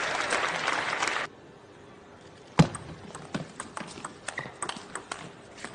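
Arena crowd noise that cuts off abruptly about a second in, then a table tennis rally. One sharp knock is followed by a quick, irregular run of light clicks as the celluloid ball strikes bats and table.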